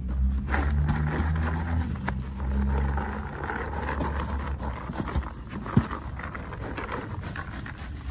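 Rabbit manure and hay being shaken out of a cardboard box onto soil, with a dry rustling and scraping and a sharp tap about three-quarters of the way through. A low steady rumble lies underneath, loudest in the first three seconds and weaker after.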